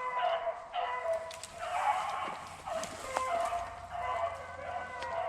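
A pack of beagles baying in overlapping, drawn-out bawls: hounds running a rabbit's trail.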